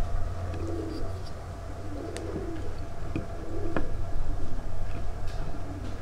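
Pigeons cooing over and over in soft, low phrases, with a couple of sharp wooden clicks from a tenoned rail being worked in its mortise, over a steady low hum.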